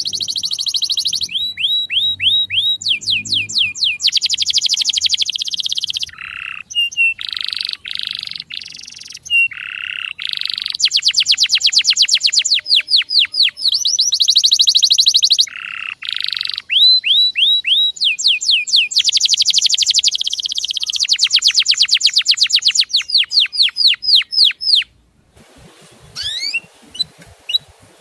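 Canary singing: fast rolling trills of repeated down-slurred notes alternating with buzzy passages, changing phrase every second or two. About 25 seconds in the song cuts off abruptly, leaving only a few faint chirps.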